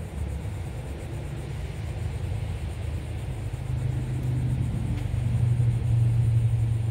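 Low engine rumble of a passing motor vehicle, growing louder over the second half.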